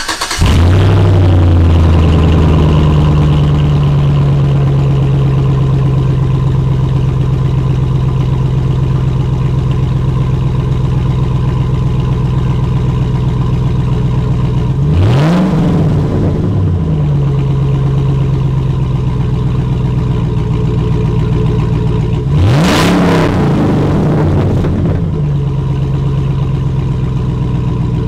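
2006 GMC Sierra 1500's Vortec V8 running with its muffler cut off, the exhaust leaving an open pipe: it fires up with a flare that settles into a steady idle, then is revved twice, about halfway through and again some seven seconds later, each rev rising and falling back to idle.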